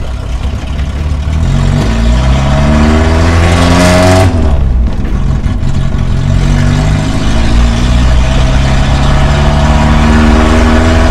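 A Toyota Starlet KP61's four-cylinder engine heard from inside the cabin, revving up under acceleration. The revs drop sharply about four seconds in, run steady, then climb again near the end.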